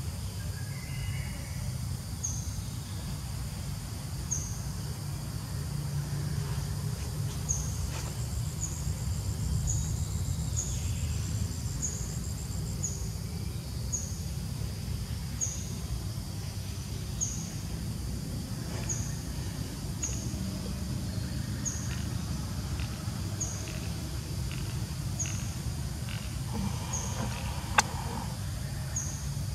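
Outdoor ambience: a short, high chirp repeats about every one and a half to two seconds over a steady low rumble. A brief fast trill comes in about eight seconds in, and a single sharp click sounds near the end.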